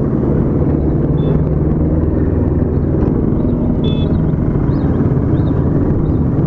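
Motorcycle running at riding speed, a steady engine drone mixed with wind and road noise as picked up by a microphone inside the rider's helmet.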